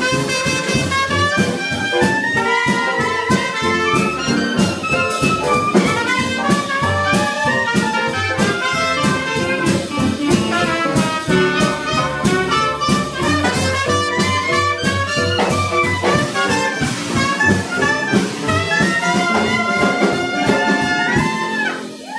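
Traditional New Orleans jazz band playing live: trumpet and clarinet over upright bass and drums, with a steady beat. The tune ends near the end.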